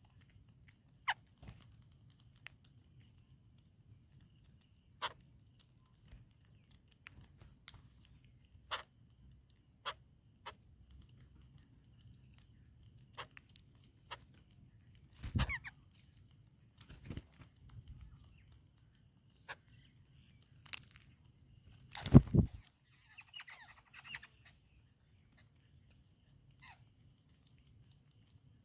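Birds at a feeding spot giving scattered short, sharp chirps, with two loud thumps, one about halfway through and one near three quarters. A faint steady high-pitched whine runs underneath.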